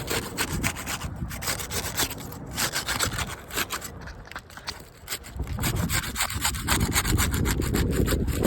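A putty knife scraping and rasping under asphalt roof shingles in quick, repeated strokes, breaking the adhesive seal strips that hold the shingles down. A low rumble joins about five seconds in.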